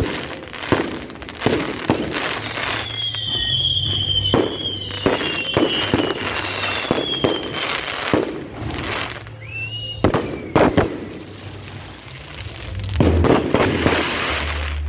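Aerial fireworks going off overhead: a rapid series of sharp bangs and crackles, with a long falling whistle from about three to seven seconds in and a short rising whistle near ten seconds. The bangs thin out for a moment and then come thick again near the end.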